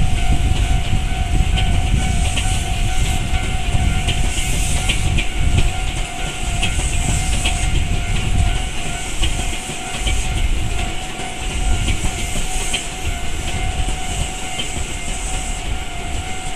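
A Tobu Isesaki Line train running past a level crossing, with a heavy rumble and wheel clatter. The crossing's standard electronic warning bell rings steadily over it.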